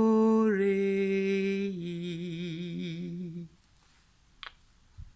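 A woman's voice holding a wordless light-language tone. It steps down in pitch twice, and the lowest, last note wavers before it ends about three and a half seconds in. A couple of faint clicks follow near the end.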